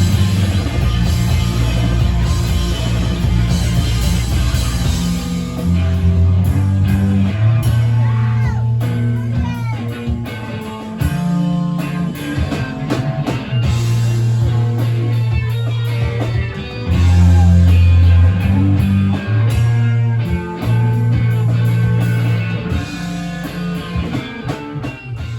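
Background music: a rock song with guitar, drums and a bass line, with singing.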